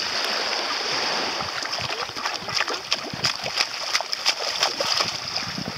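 Bare feet splashing in shallow sea water, a quick run of splashes about two to five seconds in, over a steady wash of water.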